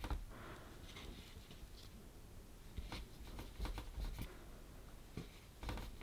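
Faint rubbing and a few light taps of fingers rolling small pieces of polymer clay into tapered strands on a wooden tabletop.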